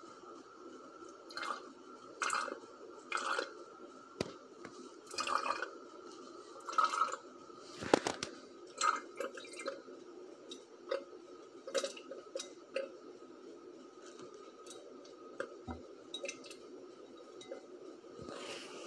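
Water dripping and splashing in irregular drops into a glass beaker of dark ethanol–potassium hydroxide pepper extract, the loudest drop about eight seconds in. This is the water being added to crash piperine out of solution.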